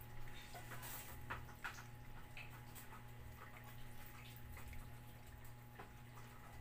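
Several cats eating from food laid on the floor: faint, irregular small clicks and wet smacks of chewing and licking, over a steady low hum.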